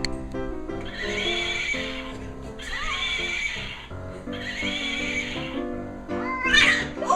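Background music with three long, wavering animal cries, then a louder, sharply rising cry near the end.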